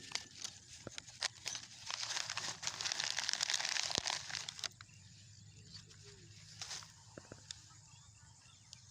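Plastic rustling and crinkling as collected plastic litter is stuffed into a bag, for about three seconds, followed by faint scattered clicks.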